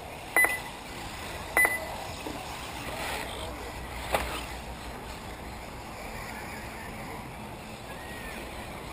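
Two short, loud electronic beeps about a second apart, then a single sharp click about four seconds in, over steady outdoor background noise.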